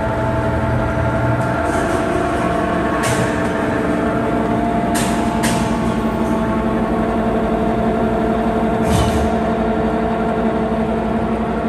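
Blanchard No. 20 vertical rotary surface grinder running: a steady machine hum with several held tones, broken by a few brief high hissing ticks about three, five and nine seconds in.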